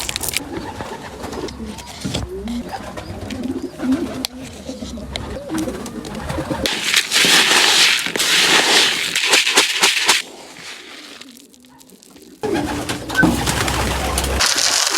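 Pigeons cooing repeatedly in low, wavering calls, with stretches of rustling noise.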